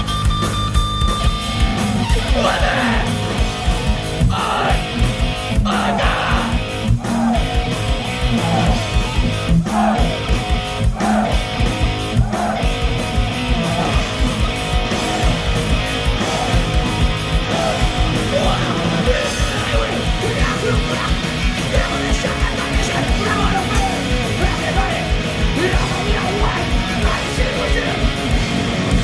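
Live rock band playing loud: electric guitar through Marshall amplifiers, bass guitar and a drum kit keeping a steady driving beat.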